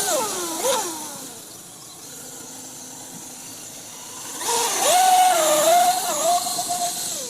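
Traxxas UDR RC truck's brushless electric motor whining under throttle, its pitch rising and falling as it speeds up and slows, with a hiss of tyres on the ground. Loud at first, quieter for a few seconds, then loud again from about four and a half seconds in.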